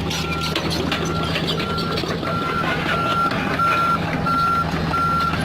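A machine's reversing or travel alarm beeping steadily at one pitch, about one and a half beeps a second, over a diesel engine running steadily on heavy equipment.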